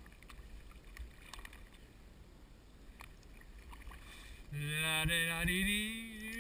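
Kayak paddling on a river: faint water sounds of the paddle under a low wind rumble on the helmet microphone. About four and a half seconds in, a man's voice holds a long drawn-out note that rises in pitch.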